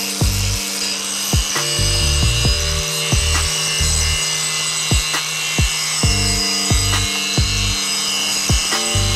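Background music with a steady beat and a bass line, over the high, continuous hiss of a power tool grinding down steel as the anvil and hammer faces are resurfaced.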